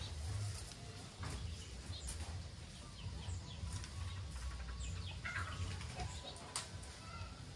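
Outdoor garden ambience: a few scattered small bird chirps over a fluctuating low rumble, with occasional faint clicks.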